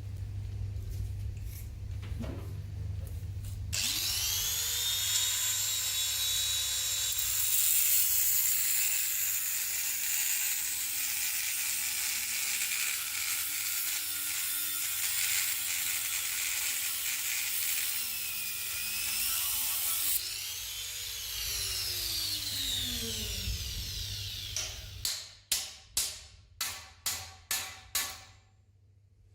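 A power tool spins up with a high whine whose pitch sags and recovers as it is pressed into work, runs for about twenty seconds, then winds down; it is followed by a quick series of about ten sharp knocks, roughly two a second, over a steady low hum.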